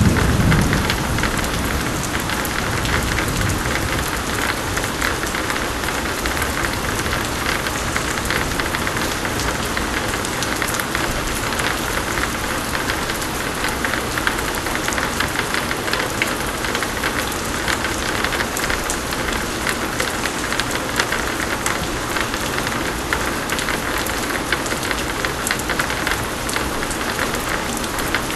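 Steady heavy rain pouring down, a dense hiss of many small drop ticks. The tail of a low thunder rumble dies away in the first second.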